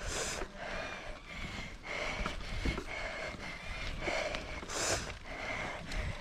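Mountain bike rider breathing hard while riding, with two sharp breaths, one at the start and another about five seconds in, over steady bike and trail rumble.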